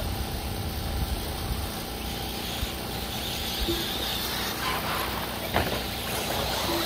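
1/8-scale electric RC buggies running on a dirt track, a faint whir under a steady low rumble of outdoor noise, with a single sharp click about five and a half seconds in.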